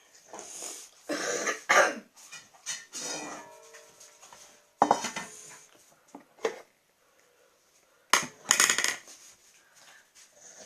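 Several short bursts of rattling and clinking from a dog's food bowl and dry food, with quiet gaps between.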